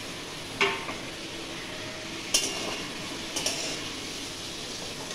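Onions, green chillies, potatoes and long beans sizzling as they fry in a steel wok, stirred with a metal spatula that knocks against the pan three times.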